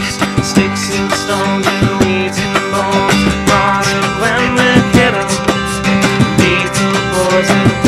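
Live band music, an instrumental passage with guitar strumming and a steady beat.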